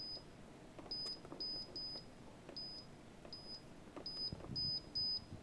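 Toro EVOLUTION irrigation controller's keypad beeping at each button press as the latitude value is stepped with the arrow keys: about eight short, high, identical beeps at irregular intervals.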